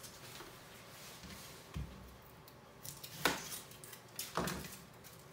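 Kitchen work: a dull knock about two seconds in, then two sharper clatters of utensils and dishes, the loudest a little past three seconds.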